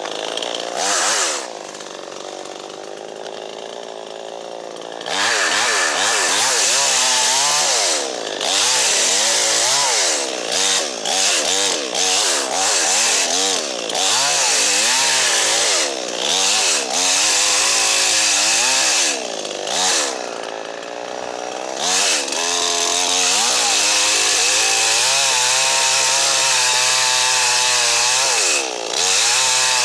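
Chainsaw idling for about five seconds, then run at full throttle cutting through a small stem that is in the way, its pitch sagging and recovering as the chain bites, and dropping back to idle briefly several times between cuts.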